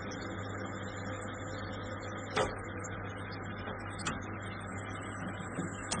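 Dishes being washed by hand in a kitchen sink: a steady rush of running water with three sharp clinks of dishes, about two and a half, four and six seconds in.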